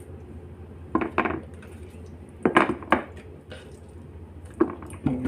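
Kitchen utensils and dishes clinking as chicken thighs are moved into a tray: three short clusters of sharp knocks, each ringing briefly, over a low steady hum.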